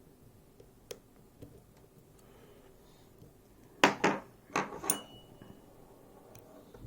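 Lock-picking tools working the pins of a Miwa JN lock: a few faint clicks, then a quick cluster of sharper metallic clicks and scrapes about four seconds in, the last with a brief ring.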